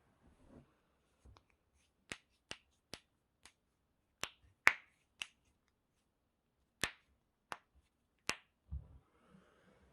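Human joints being cracked: about ten sharp pops in an irregular series, the loudest about halfway through, with a soft low thump near the end.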